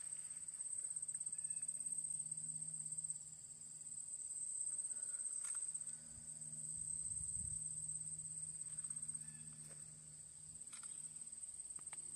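Late-summer insect chorus, a steady high-pitched pulsing trill of crickets and other insects. A faint low hum comes and goes underneath, with a few scattered clicks.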